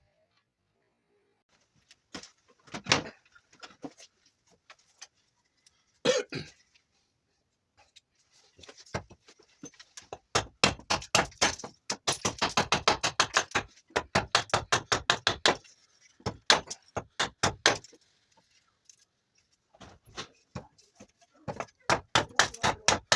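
Axe or knife cutting into a piece of juniper wood by hand: a few single strokes, then quick runs of short sharp strokes at about four or five a second.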